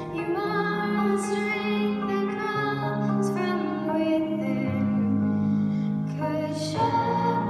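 A young girl's solo voice singing a slow worship song into a microphone over instrumental accompaniment, holding long notes.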